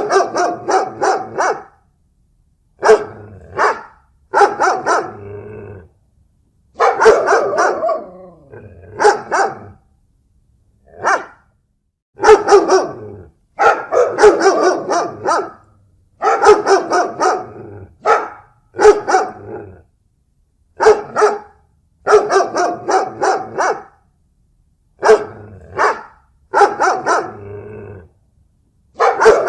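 A dog barking in repeated bouts of several quick barks, with short silent gaps between the bouts.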